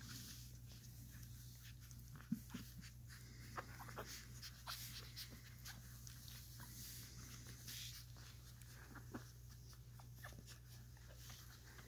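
Faint squeaks and suckling noises from a litter of newborn puppies nursing, small irregular clicks over a low steady hum.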